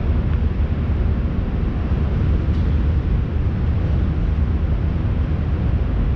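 Steady low rumble with no clear rhythm or pitch.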